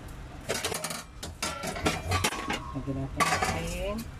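Clinks and clatter of kitchenware at an aluminium cooking pot: a run of sharp knocks over the first couple of seconds and another short burst about three seconds in.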